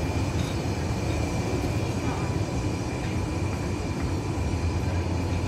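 Steady low rumble of indoor room noise, with faint, indistinct conversation from people at the table.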